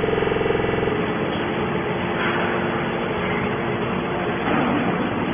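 Hydraulic can baler running, a steady machine din. A strong humming tone with overtones stops about a second in, leaving a noisy mechanical clatter with a faint steady hum underneath.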